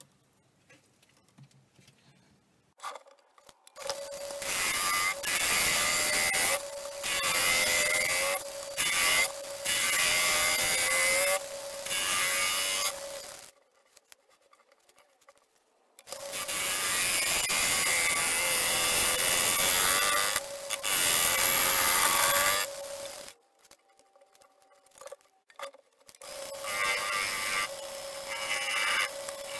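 Wood lathe running while a gouge cuts a pine-and-plywood bowl: a steady hum under the hiss and rasp of the cut. It comes in three stretches of several seconds each, with short quiet pauses between them.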